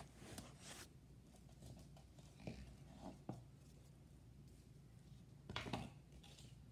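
Near silence: quiet room tone with a few faint soft knocks around the middle and a brief, slightly louder rustle near the end, small handling sounds.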